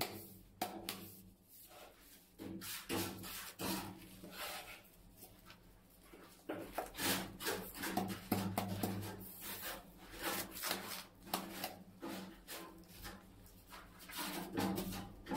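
Gloved hand sliding and pressing ceramic wall tiles into combed tile adhesive: irregular scraping and light taps, over a faint steady low hum.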